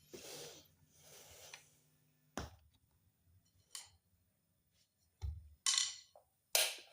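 Workbench handling noises: a few sharp clicks and knocks, one with a dull thump about five seconds in, between short hissing rustles.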